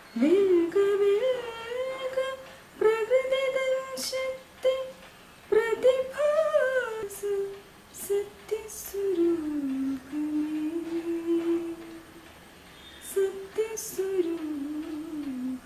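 An elderly man singing solo and unaccompanied, a slow melody in phrases with short breaks between them and long held, wavering notes.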